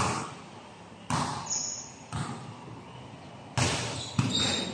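A basketball bouncing on a hard court floor as it is dribbled: about five bounces, unevenly spaced roughly a second apart, each echoing in the large hall.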